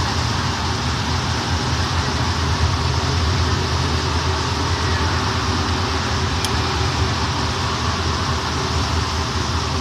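Steady running noise inside a car of a Santiago Metro NS-93 rubber-tyred train travelling through a tunnel: an even rush of noise over a low, constant hum.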